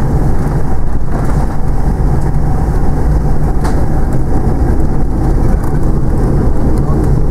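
Airliner cabin noise as the plane rolls along the ground after landing: a loud, steady rumble, heaviest in the low end.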